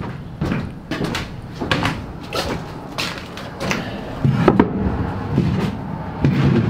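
Hollow knocks and clunks on an enclosed trailer's floor, about two a second, as a motorcycle is walked in and set in place. A low steady hum runs underneath.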